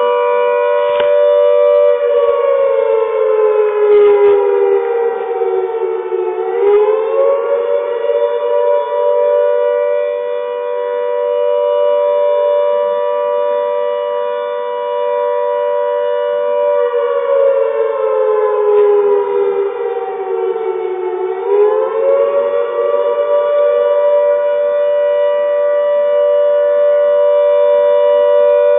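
Flood warning siren sounding on test: a loud, steady two-note tone. Twice its pitch sinks slowly over about four seconds and then swings quickly back up, the two dips about fifteen seconds apart.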